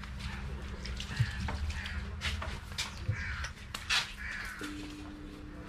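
Crows cawing a few times in the background, over rustling and light knocks from a wet puppy being rubbed down with a cloth.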